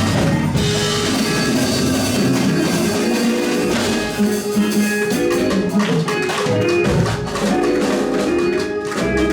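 Live gospel praise-break music: a church band playing with drums and steady percussive hits under sustained pitched instruments.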